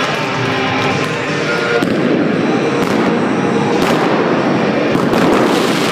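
Indoor arena pyrotechnics: music at first, then from about two seconds in a dense crackling of fireworks with several sharp bangs.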